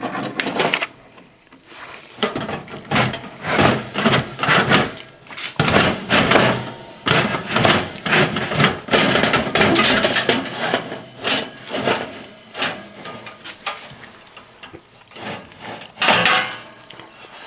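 Repeated clattering and knocking of hard objects being handled, with rustling in between.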